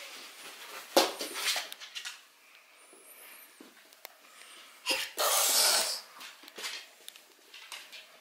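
Pet dog sounds close by: a sharp knock about a second in, then a loud hissing burst lasting about a second near the middle.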